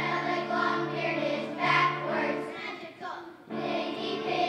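A children's choir singing a song together in long held notes, with a short pause about three seconds in.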